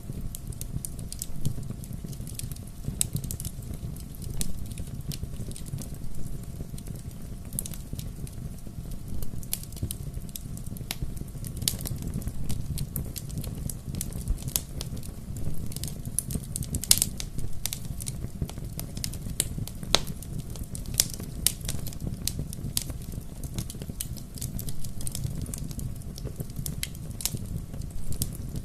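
Wood fire burning with a steady low rumble and irregular sharp crackles and pops of burning logs.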